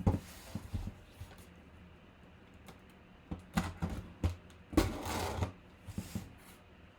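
A cardboard helmet box being cut open and handled: scattered clicks and knocks, with a longer rasp of blade or tearing tape on cardboard about five seconds in.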